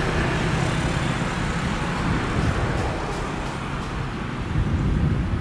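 Continuous engine noise: a strong low rumble under a hiss that slowly fades over a few seconds.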